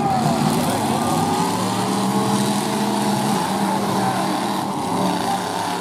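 Derby pickup trucks' engines running hard and revving through open exhaust stacks as the trucks push against each other, the pitch wavering up and down.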